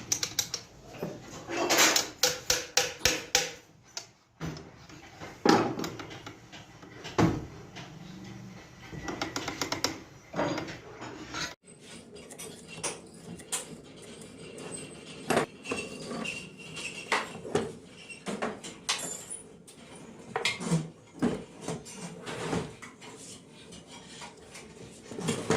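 Metal clinking and knocking from hand work on sewing machine parts, with quick runs of taps about two seconds in and again near ten seconds.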